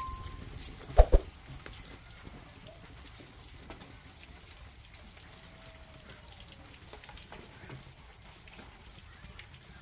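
A metal ring fading at the start, then two sharp knocks about a second in as iron fire tongs move glowing embers against a stone hearth and kettle. After that, a wood fire crackles faintly.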